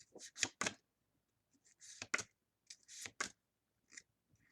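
Pokémon trading cards being handled on a table: a few clusters of short papery slides and scrapes.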